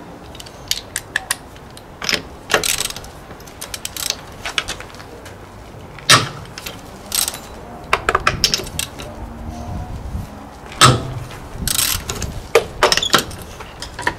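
Metal hand tools clinking and clicking: a socket wrench worked on a car's wheel bolts and sockets handled from a socket rail, with scattered clicks and a few sharper metal knocks, the loudest about six and eleven seconds in.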